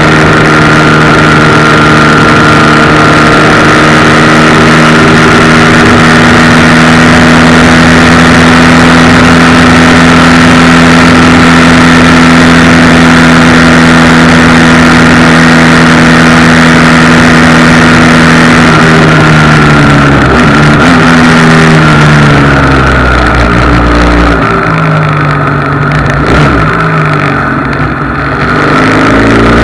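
Motorcycle engine running at a steady cruise. About two-thirds of the way through, the revs drop and climb again several times as the rider slows and changes gear. The recording carries a heavy vibration rattle.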